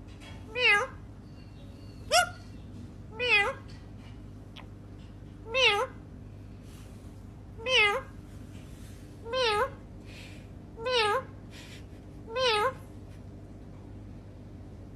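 A cat meowing over and over: about eight short meows, evenly spaced, each with a wavering pitch.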